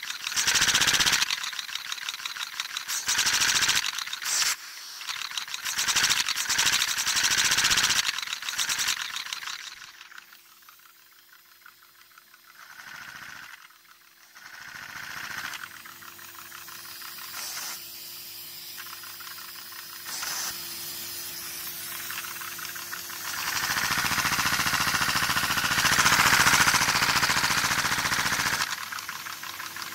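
Gas hissing through a LEGO butterfly engine, in short on-off bursts for the first several seconds. A quieter stretch with a faint steady hum follows, then a longer, louder blast of hissing as the engine runs near the end.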